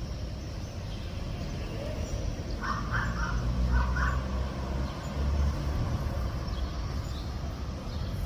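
A bird gives two short harsh, cawing calls about three seconds in, one right after the other, over a steady low rumble of wind on the microphone.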